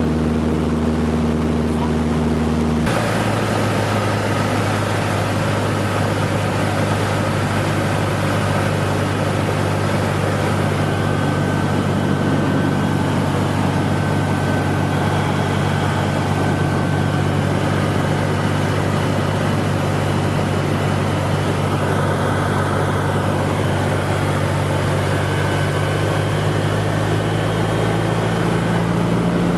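Cessna 150's Continental O-200 four-cylinder engine and propeller droning steadily in flight. There is an abrupt change in the engine's tone about three seconds in.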